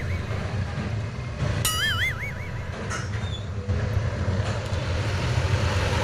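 An edited-in cartoon sound effect: a wobbly, warbling whistle about two seconds in, lasting under a second. Underneath it runs a steady low background rumble.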